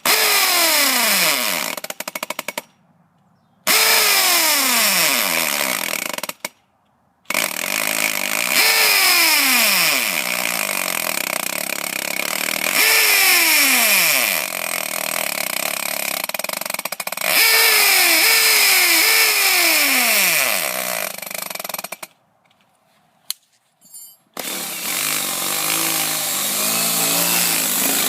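Power drill boring into a metal deadbolt, running in long stretches with three short stops; its whine drops in pitch again and again while the bit grinds through the thick metal.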